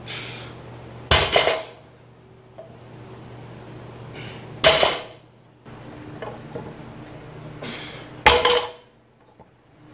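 A 315-lb loaded barbell coming down between reps, its plates clanking sharply three times, about three and a half seconds apart, each clang with a lighter rattle of the plates just before it.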